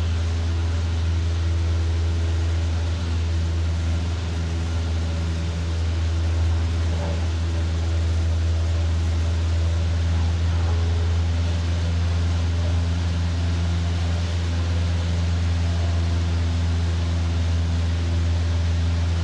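Light aircraft's engine and propeller droning steadily in flight, a strong low hum with even overtones.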